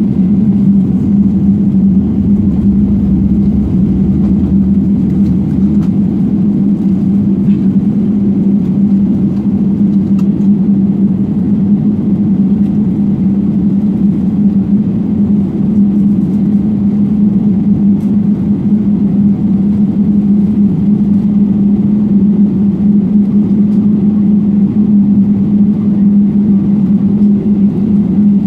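Steady cabin noise of a Boeing 777 taxiing, heard from inside the cabin: an even engine and airflow drone with a strong constant low hum.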